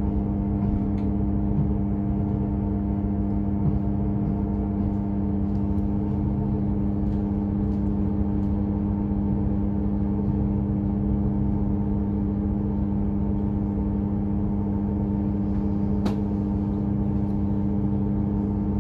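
Diesel multiple unit's underfloor engine running steadily, heard from inside the carriage as a constant hum over a low rumble. A single sharp click about sixteen seconds in.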